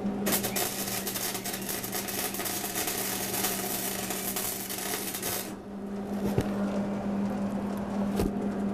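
MIG welding arc crackling and sizzling steadily as a steel joint is welded, stopping about five and a half seconds in. After that only a low steady hum and a couple of light clicks remain.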